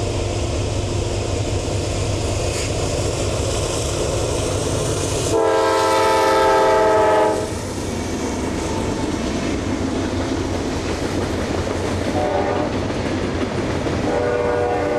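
Freight train passing close by: a steady rumble from the diesel locomotive and the rolling cars. About five seconds in, a multi-note train horn sounds loudly for about two seconds. Shorter, fainter horn notes come near the end.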